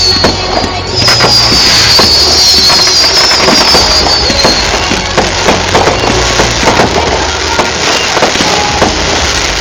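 Fireworks display: a rapid run of bangs and crackling reports, with a high whistle that falls slowly in pitch for about three and a half seconds, starting about a second in.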